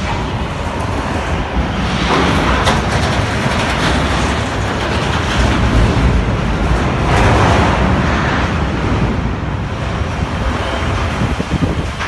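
Strong wind blowing across the microphone, a steady rushing noise that swells louder about two seconds in and again around seven seconds.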